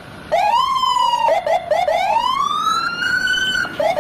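Police car siren sounding as the patrol car passes, with a rising wail, a few quick yelps in the middle, then a long slow rising wail that starts over near the end.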